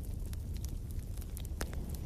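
Wood fire in a fireplace crackling: scattered sharp pops and snaps over a low, steady rumble of flames, with one louder pop near the end.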